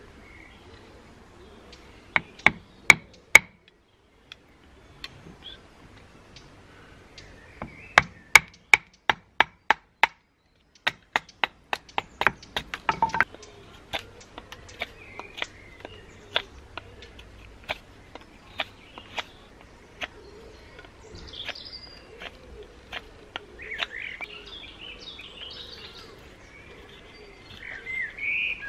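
A wooden baton striking the spine of a knife to split a piece of wood on a log stump, in runs of sharp knocks, about four a second at the fastest. The knocks thin out about two-thirds of the way through, and birds chirp near the end.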